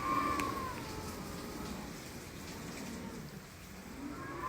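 Hurricane-force wind outside, heard from indoors: a steady rushing with a howling whistle that rises and falls near the start and again near the end.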